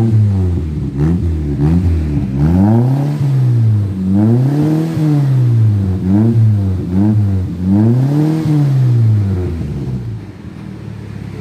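Toyota Kijang Rover's engine revved up and down over and over through an aftermarket racing exhaust with a resonator, then dropping back to a steady idle near the end.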